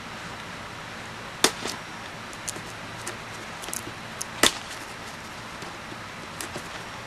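Sharp clicks and taps from handling and opening a cardboard shipping box. The two loudest come about one and a half and four and a half seconds in, with fainter ticks between, over a steady background hiss.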